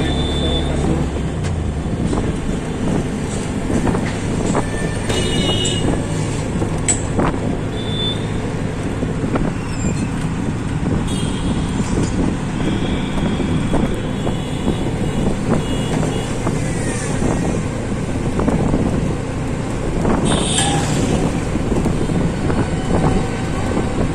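Auto-rickshaw engine running with road and city traffic noise, heard from the passenger seat. Other vehicles' horns honk several times: around five seconds in, on and off from about eleven to sixteen seconds, and loudest about twenty seconds in.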